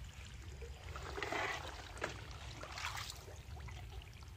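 Faint, irregular splashing and sloshing of shallow muddy pond water, over the low steady hum of a pond-draining pump engine.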